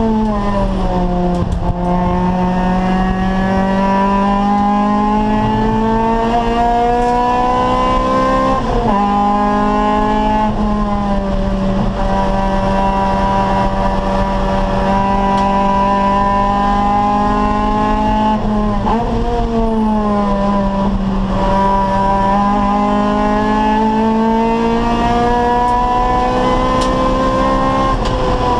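Acura Integra Type R race car's four-cylinder VTEC engine running at high revs under hard driving. Its pitch drops near the start and again about a third and two thirds of the way through, climbing steadily in between.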